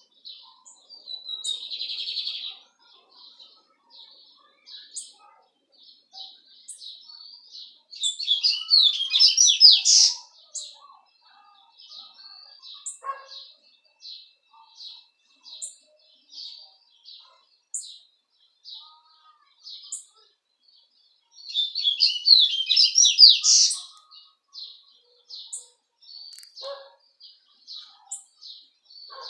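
Caged songbird known locally as a cabeça-preta singing: two loud, fast twittering phrases about 8 and 22 seconds in, with soft, regular chip notes between them.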